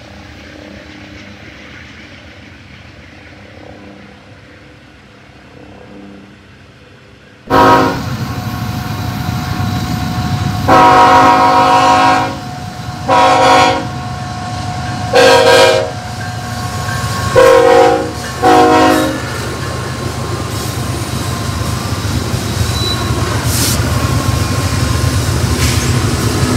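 Diesel freight locomotive horn sounding a string of long and short blasts as the train approaches. The BNSF diesel locomotives' rumble then grows loud as they pass close by.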